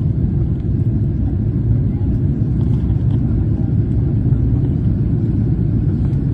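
Steady low rumble of a Boeing 777-300ER's GE90 engines and rushing air, heard inside the passenger cabin during the climb after takeoff.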